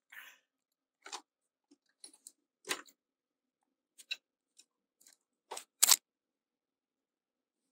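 Scattered clicks and clinks of hand tools being handled, as a socket and ratchet are fetched and readied for the brake caliper carrier bolts. The loudest is a sharp pair of clicks about six seconds in.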